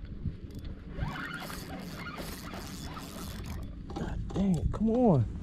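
Fishing reel being cranked, a ratcheting mechanical clicking. Near the end come two short, loud calls, each rising and then falling in pitch.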